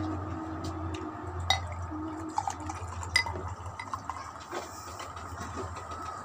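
An orange drink pouring from a bottle into a drinking glass as the glass fills. Two sharp clicks come about a second and a half and three seconds in.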